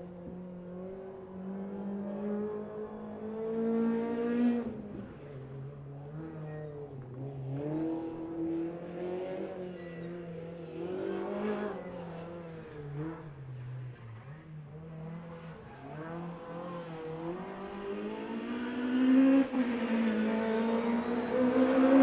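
Ford Fiesta rally car's engine revving hard, its pitch climbing and then dropping sharply several times through gear changes and lifts, with a sharp drop about four and a half seconds in. It is loudest near the end as the car passes close.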